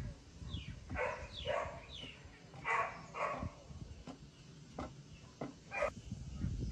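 A series of short animal calls, each falling in pitch, about six in the first three seconds, followed by three brief sharp calls near the end.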